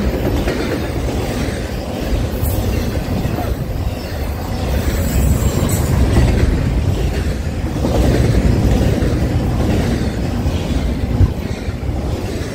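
Double-stack container freight train rolling past close by: a loud, steady rumble and rattle of the well cars on the rails.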